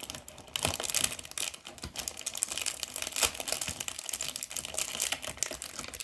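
Small plastic LEGO pieces being handled and pressed together: a dense run of quick, irregular clicks and rattles.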